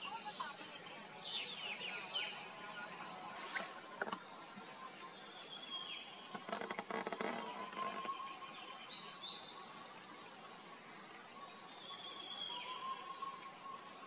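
Several wild birds calling: quick falling chirps and thin whistled notes, with a stretch of crackly noise about six to eight seconds in.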